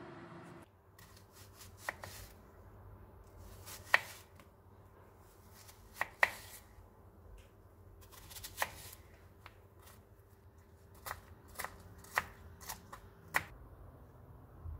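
Kitchen knife slicing an onion on a plastic cutting board: sharp, irregular knocks as the blade meets the board, about ten strokes a second or two apart.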